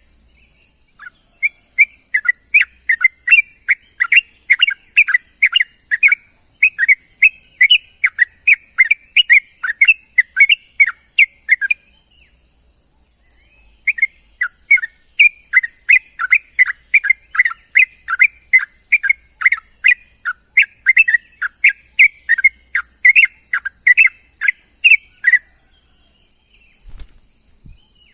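Yellow-vented bulbul (trucuk) calling to companions: a rapid run of short bubbly chirping notes, breaking off for about two seconds near the middle, then a second long run that stops a few seconds before the end.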